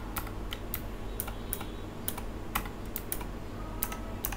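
Clicky low-profile Gateron Blue switches on a Keychron K11 Pro keyboard, pressed one key at a time in about ten sharp, unevenly spaced clicks as function-key combinations switch the LED backlight.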